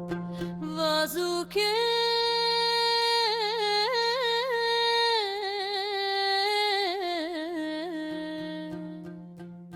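Meditation music in an Indian style: a steady low drone under one long, held melodic line with wavering ornamental turns. The melody steps down in pitch about five seconds in and fades out near the end.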